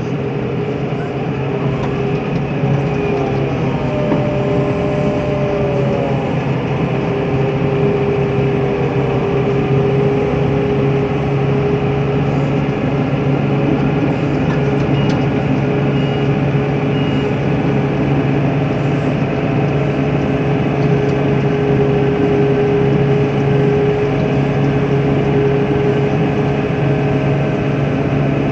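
Tractor engine running steadily under load while pushing a front snow plow, heard from inside the cab: a constant low drone with a steady whine over it, wavering a little in pitch in the first few seconds.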